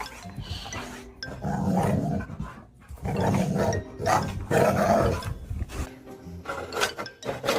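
A dog vocalising back in three long bursts.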